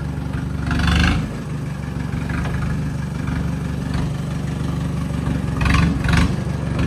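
Diesel farm tractor engine running at a low, steady idle while the tractor is driven slowly. The sound swells briefly louder about a second in and again near the end.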